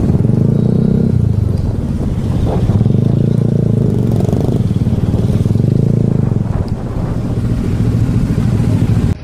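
Motorcycle engine running steadily as the bike rides along, heard from on board the bike, with the engine note easing a little about halfway through and picking up again.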